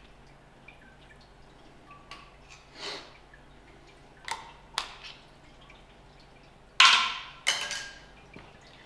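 Metal clanking as a workpiece is handled in a milling machine vise: a few light knocks and clicks, then two loud clanks with brief ringing, about half a second apart, near the end.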